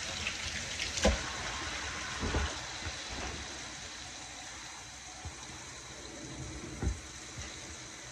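Kitchen sounds: a steady watery hiss that eases off after about three and a half seconds, with a few short knocks about one, two and seven seconds in.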